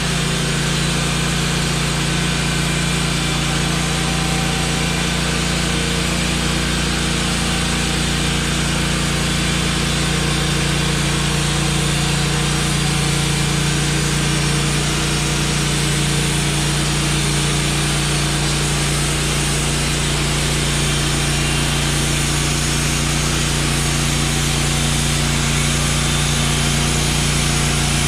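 Wood-Mizer LT15 portable band sawmill running steadily, its engine holding an even speed while the band blade saws through a pine log.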